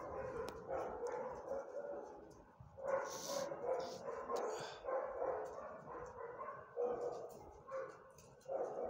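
Dogs barking, a run of short, irregular barks.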